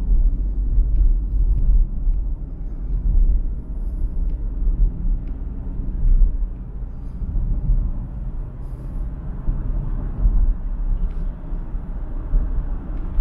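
Steady low rumble of a car driving at highway speed: tyre and road noise, with a few faint ticks now and then.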